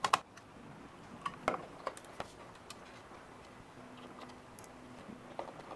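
Scattered small clicks and ticks of a hand screwdriver turning screws into the housing of a Furman power strip, with a sharper click right at the start.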